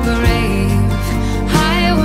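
Background music: a melody line with pitch glides and vibrato over a steady bass.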